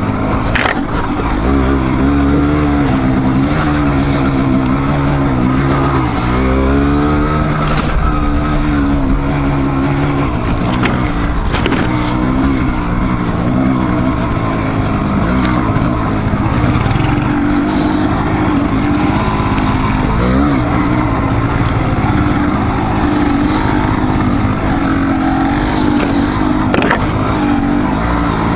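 Dual-sport motorcycle engine running on a trail ride, its pitch rising and falling with the throttle, with a clear rev-up about six seconds in and a brief blip near twenty seconds.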